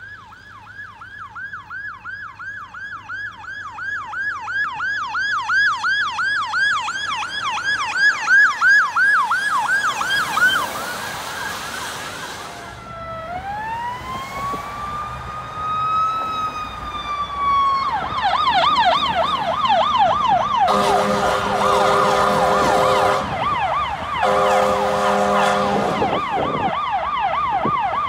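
Ambulance sirens: a fast yelp of about three sweeps a second growing louder as the vehicle approaches, then a slow wail rising and falling once, then the yelp again with two long horn blasts.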